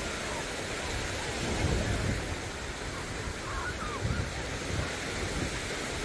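Wind buffeting the microphone in gusts over the steady wash of small waves breaking along a sandy shore.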